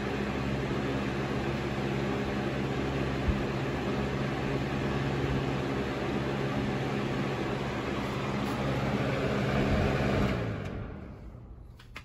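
Lasko Power Plus B20540 box fan running steadily: an even rush of air over a low motor hum. About ten seconds in it winds down, the hum sinking in pitch and the air noise fading away as the blades coast to a stop.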